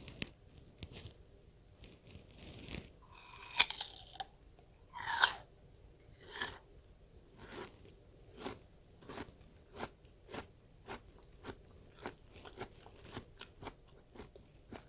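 Bites into a slice of raw Korean (Asian) pear, with three loud crunches in the first half, then steady close-up chewing at about two chews a second.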